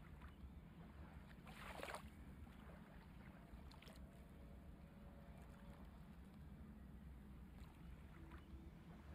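Near silence: faint room tone with a low hum, and a brief soft rustle about a second and a half in.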